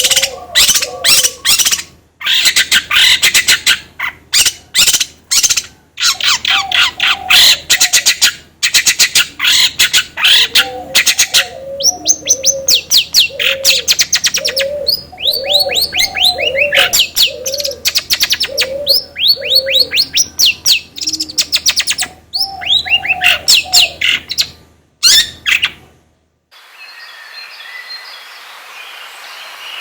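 Caged songbirds singing hard: dense, rapid chirps and trills with a lower, repeated call running underneath, played as a lure recording to set other birds singing. About 26 seconds in it cuts off to a faint hiss, and chirping starts again near the end.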